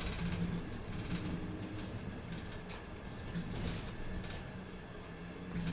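A Sendai city bus running, heard from inside the passenger cabin: a low engine hum that rises and falls slightly over road noise, with a few short rattles from the bus interior.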